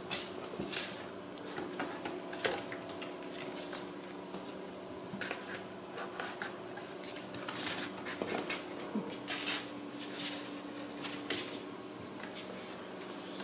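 Kittens playing: scattered light clicks, scratches and knocks as small paws and claws strike a cardboard cat house and a tile floor, over a steady low hum.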